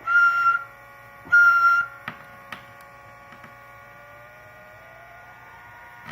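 Buzzing CB radio transmission heard through a monitoring receiver's speaker: two short bursts of a buzzing whine about half a second each near the start, over a steady electrical hum, then a whistle that slowly rises in pitch. The buzz is a fault in the brand-new Cobra 29 Competition's transmitted audio that persists whatever the mic gain.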